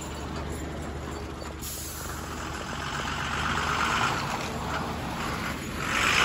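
Engines of trucks and other vehicles running in slow, jammed traffic: a steady low engine hum, with a rush of noise that swells from about two seconds in and again near the end.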